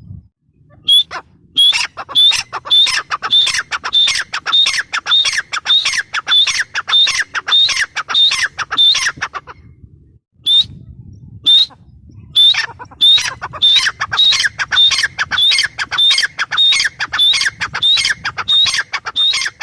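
Grey francolin (teetar) calling: a loud series of sharp, repeated notes, about two to three a second, in two long bouts with a brief pause about halfway.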